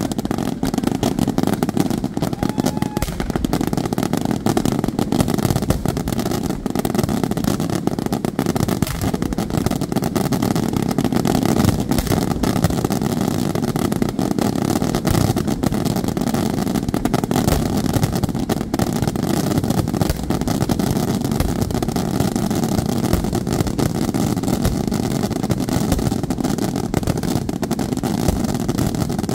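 Fireworks display in a dense barrage: low comets, fountains and aerial shells firing one over another in continuous rapid bangs and crackle, with no break.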